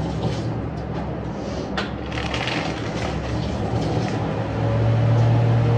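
A steady low machine hum that grows louder about four and a half seconds in, with brief crinkling of a plastic instant-noodle packet about two seconds in.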